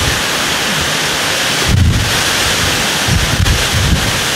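Torrential rain blowing sideways in a severe thunderstorm's gusts, a dense steady hiss. Wind gusts buffet the microphone with low rumbles about two seconds in and again between three and four seconds.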